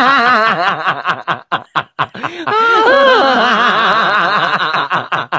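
A person laughing in rapid 'ha-ha' pulses. The laughter breaks off into a second or two of choppy fragments and clicks, then comes back in a long run before stopping just before the end.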